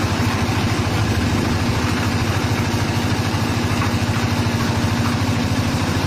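The 10 HP Kirloskar air-cooled diesel engine of a 3/4-bag concrete mixer, running steadily with an even, rapid chug.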